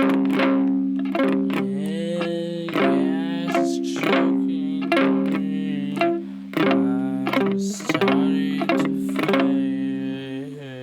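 Guitar chords strummed in a steady rhythm, about two strokes a second, with the chord ringing between strokes; the playing thins and gets quieter near the end.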